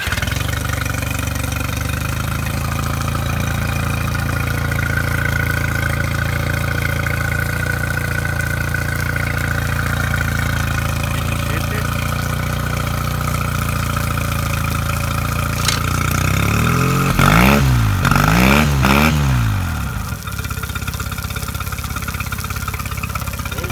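2005 Yamaha 9.9 High Thrust two-cylinder four-stroke outboard starting at once and running at a steady idle out of the water on a test stand. About three quarters of the way through it is revved up and down three times in quick succession, then drops back to a slightly quieter idle.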